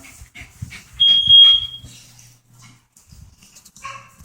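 Smoke alarm giving a single high-pitched beep about a second in, lasting nearly a second.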